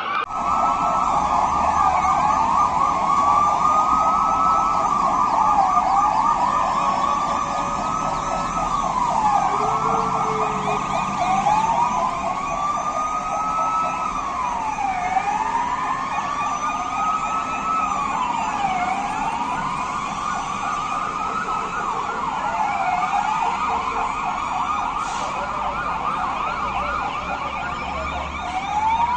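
Several emergency vehicle sirens wailing together, each rising and falling slowly every few seconds, overlapping at slightly different pitches.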